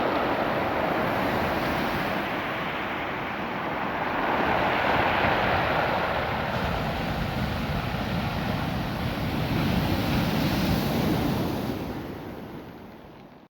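Ocean surf washing up and drawing back over a beach of small rounded stones, a steady wash that swells about four seconds in and again near ten seconds, then dies away near the end.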